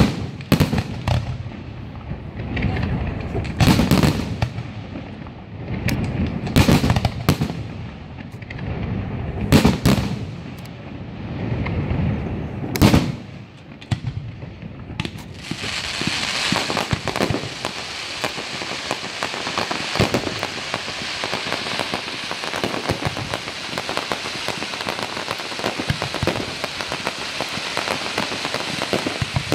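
Fireworks display: aerial shells bursting one after another with deep reports every couple of seconds. About halfway through these give way to a dense, continuous crackling from many crackling effects at once, like heavy rain.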